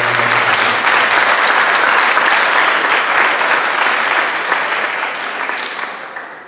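Audience applauding, steady for most of the time and fading away near the end.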